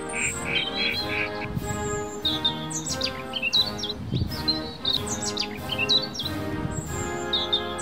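Birds chirping and tweeting over background music of sustained chords. The chirps are short, high and quickly rising and falling, coming in clusters every second or so.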